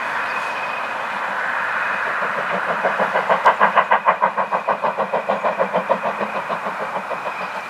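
Mainline dining train passing, top-and-tailed by BR Standard 4 steam locomotive 76084 and Class 20 diesel 20227: a steady mechanical drone with a thin high whine, joined from about two and a half seconds in by rapid, even steam exhaust beats, about five a second. The beats swell and then fade as the train draws away.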